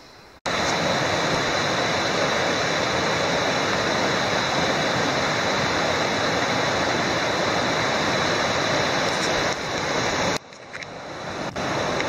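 Shallow, boulder-strewn river rushing through small rapids: a steady, loud hiss of running water. It starts abruptly just under half a second in and cuts off suddenly near the end, leaving a fainter rush that swells back up.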